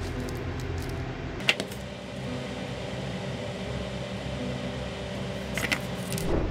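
A steady mechanical hum, with light clicks about a second and a half in and twice near the end, and a sharper knock at the very end as the wooden knife-handle pieces and glue tube are handled.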